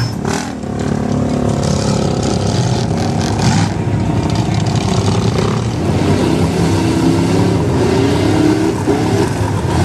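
Pickup truck engine revving through a deep mud pit, the revs rising and falling repeatedly in the second half, over the churn and splash of tyres in mud and water.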